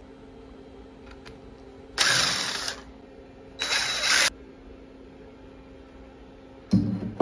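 Cordless impact driver backing out the bolts that hold the plasma torch mount on a CNC gantry, in two short bursts of under a second each, about a second and a half apart.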